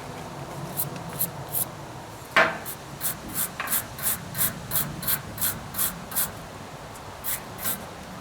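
Hand wire brush scrubbing a rusty steel bolt in quick back-and-forth strokes, about four a second, with a single knock a couple of seconds in.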